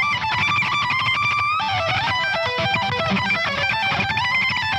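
Distorted lead electric guitar played through a Brainworx Diezel VH4 amp-sim plugin: a melody of held notes stepping up and down, with two lead parts sounding together.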